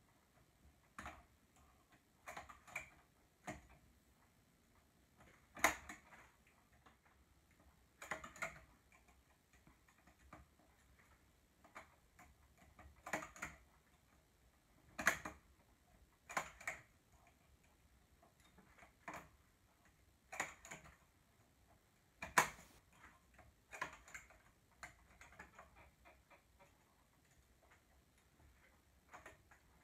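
Three-prong metal transfer tool clicking against the latch needles of a knitting machine's needle bed as stitches are lifted and moved by hand: light, irregular clicks and taps, often two or three close together, every second or two.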